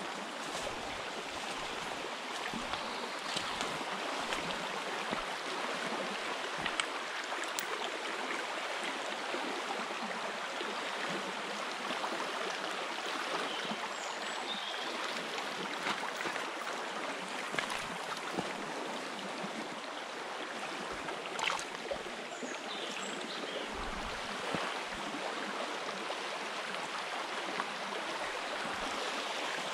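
Shallow stream running over stones and riffles, a steady rushing of water.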